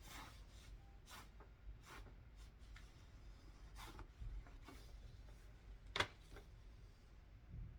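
Soft rustling of paper sheets being handled and sorted, a few brief rustles a second or so apart, with one sharp click about six seconds in.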